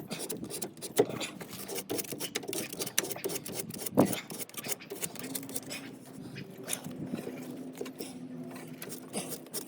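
Irregular clicks, knocks and scraping from plastic drain fittings being handled and test-fitted, with sharper knocks about one second and four seconds in. A faint steady hum comes in about five seconds in.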